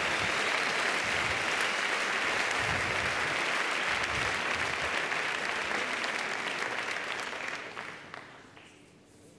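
Large theatre audience applauding, a dense steady clapping that dies away about eight seconds in.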